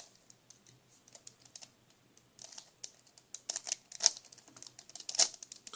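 Rubik's cube being turned by hand, its plastic layers clicking and clacking in quick irregular runs of turns, growing busier after about two seconds.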